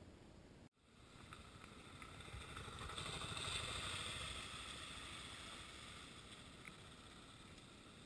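Suzuki DR650 motorcycle riding through a shallow creek, its wheels splashing through the water. The sound swells to a peak about three and a half seconds in and then fades as the bike moves away. The sound cuts out briefly under a second in.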